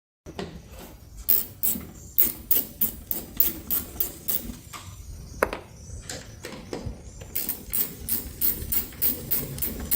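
Ratchet on a T25 Torx bit clicking in a steady rhythm, about three clicks a second, as the tail light screws are backed out. The clicking pauses for a couple of seconds midway.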